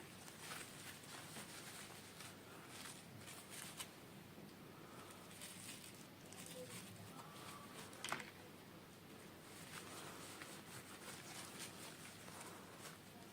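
Faint rustling and light clicks of hands handling unboxing packaging and miniature toys, with one sharper click about eight seconds in.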